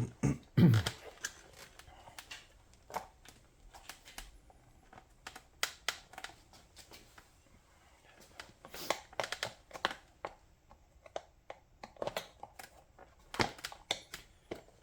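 Rubber stroller tire being worked by hand over the edge of its rim: irregular clicks, knocks and short rubbing noises of rubber against rim. A brief low voice sound comes near the start.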